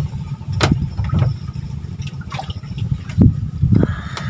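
Water sloshing and splashing, several separate splashes over a steady low rush of moving water.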